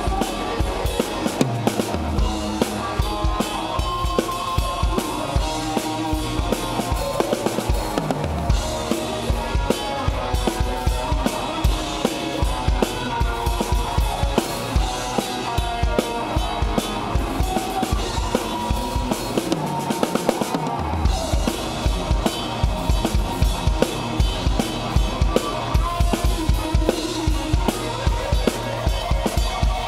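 Rock band playing live, heard from right beside the drum kit. Kick drum, snare and cymbals drive a steady fast beat over electric guitar, and the kick drops out briefly about twenty seconds in.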